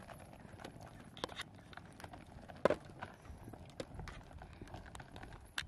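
Footsteps of people walking along a camp path: quiet, irregular steps and scuffs, with a sharper knock about two and a half seconds in and another near the end.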